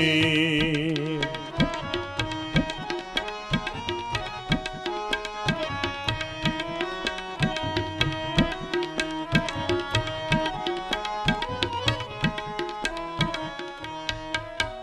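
Instrumental interlude of a devotional shabad: tabla keeps a steady beat under a held, stepwise harmonium melody. The singer's last held note fades out within the first second.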